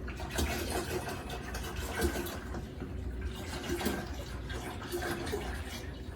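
Distilled water being poured from a bottle into a humidifier's water tank, a continuous fill with irregular gurgles.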